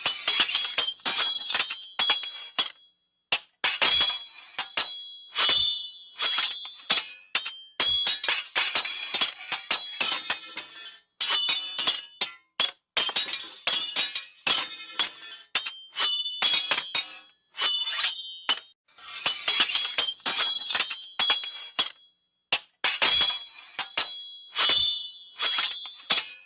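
Sword sound effects: a rapid series of metal blade clashes, each strike ringing high and bright, coming in clusters with short pauses between them.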